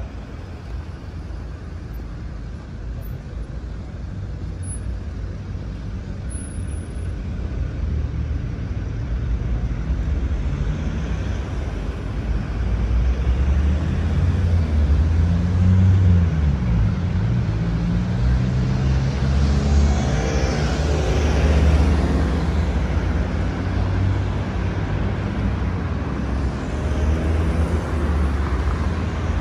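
Road traffic passing close by, engines and tyres, growing louder about a third of the way in, with one vehicle's engine pitch sliding down and up and another vehicle passing close about two-thirds of the way through.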